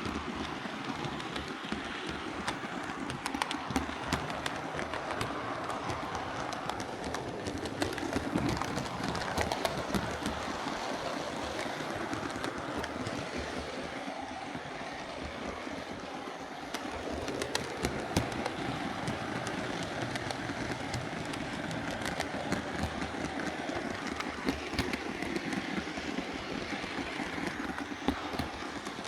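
Hornby Class 4P OO gauge model steam locomotive running along the track under power, a steady whirr of motor and gears with frequent small clicks from the wheels on the rails. The drive gear is newly replaced and the intermediate gear filed and lubricated.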